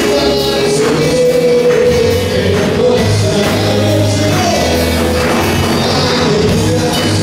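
A live worship band playing a song with drums, guitars and keyboard while a group of singers sings the melody with long held notes over a steady drum beat.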